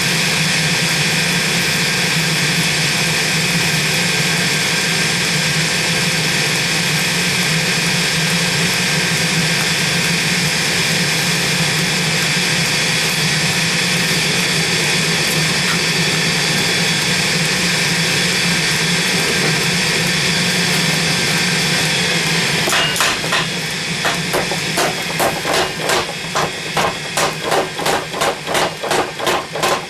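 A forge running with a steady noise, then, about three-quarters of the way in, evenly spaced hammer blows start, about two to three a second, as the 29-layer steel billet is forge-welded.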